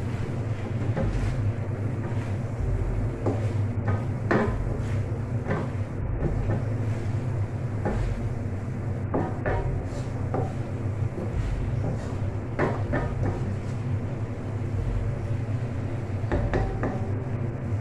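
Wooden spatula stirring vegetables in an aluminium wok, scraping and knocking against the pan at irregular moments, over a steady low hum.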